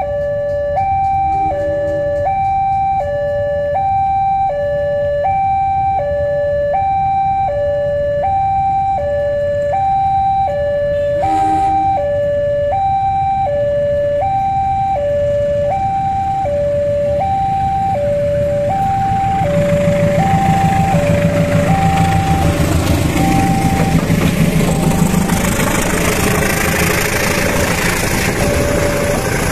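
Railway level-crossing warning alarm sounding, alternating steadily between a higher and a lower tone about once a second. From about two-thirds of the way through, a CC 201 diesel locomotive hauling a passenger train passes close by. Its engine rumble and wheel noise grow loud over the alarm.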